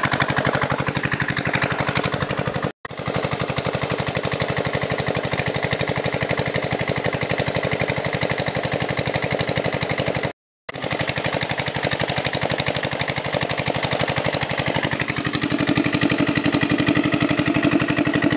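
Small engine running steadily with a fast, even beat, most likely the pump whose pipe drains the pool; it breaks off briefly twice.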